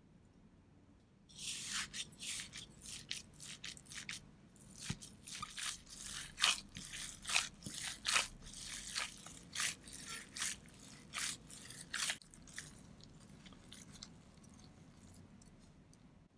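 Raw beef mince squelching as a gloved hand squeezes and kneads it in a glass bowl: a quick, irregular run of wet squishes starting about a second in and stopping about twelve seconds in, then faint handling.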